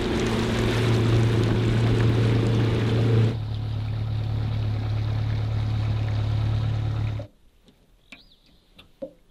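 Jet boat's outboard engine running at a steady hum, the sound growing lower and duller about three seconds in, then cutting off abruptly near the end, leaving a few faint bird chirps.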